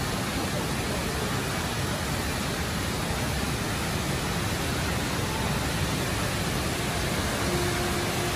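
Steady, loud rushing of falling water from the Rain Vortex, the large indoor waterfall at Jewel Changi Airport.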